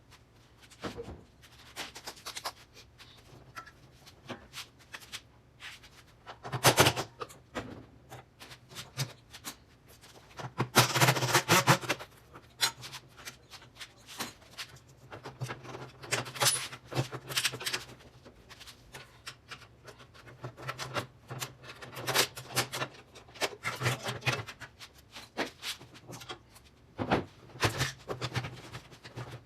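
Hand-tool work on a direct drive washing machine being taken apart: scattered clicks, knocks and metal clanks, with a longer burst of rattling and scraping about eleven seconds in, over a faint steady hum.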